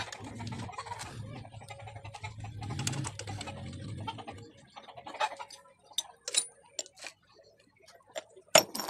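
A low steady hum, then from about halfway a series of sharp metallic clicks and taps from motorcycle engine parts being handled and fitted in the open crankcase. The sharpest clicks come near the end.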